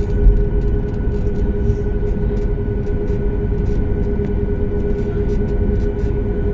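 A steady mechanical drone: a low rumble under a constant, unchanging hum, with faint light ticks scattered through it.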